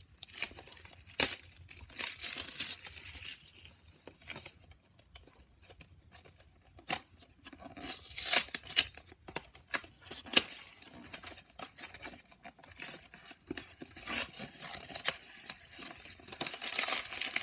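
Plastic wrap and cardboard of a Mystery Minis blind box crinkling and rustling in the hands as the box is unwrapped and opened. The sound comes in irregular spells with sharp little clicks and crackles, with quieter pauses between.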